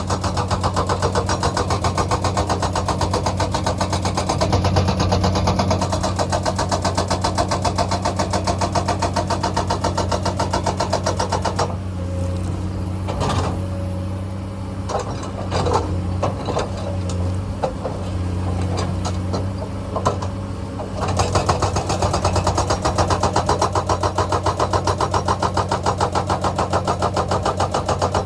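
Komatsu excavator's diesel engine running steadily under load, with a rapid regular pulsing for about the first twelve seconds. The pulsing stops for about nine seconds, leaving a quieter stretch with scattered sharp knocks, then comes back near the end.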